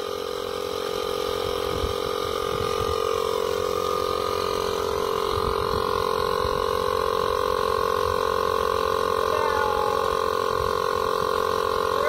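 Small plug-in portable air compressor running steadily as it pumps up a low pickup truck tyre toward 40 psi: an even motor hum with a steady mid-pitched tone, getting a little louder as it goes.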